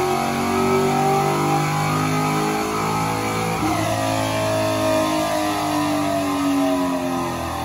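Pontiac GTO's V8 running on a chassis dyno, easing off with its engine note slowly falling and wavering.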